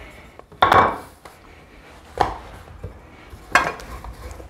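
A pizza pan being handled on the kitchen counter, likely to check it against the rolled-out dough: three clattering knocks, the first about half a second in and the loudest with a short ring, then two sharper ones about a second and a half apart.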